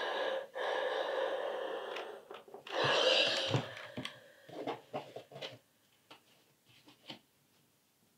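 Steam iron pressing a folded-up knit hem on an ironing board: a steady hiss for a couple of seconds, then a shorter loud hiss about three seconds in. After that come a few light knocks and fabric rustles as the iron is stood up and the fold is smoothed by hand.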